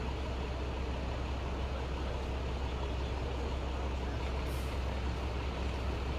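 Diesel buses idling with a steady low rumble, and a brief air-brake hiss about four and a half seconds in.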